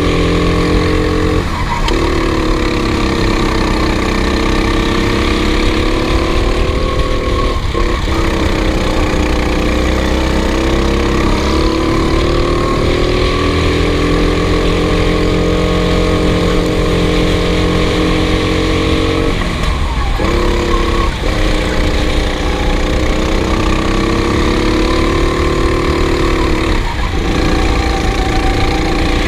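Racing kart engine running hard at high revs, its note wavering gently and dipping briefly several times before picking up again.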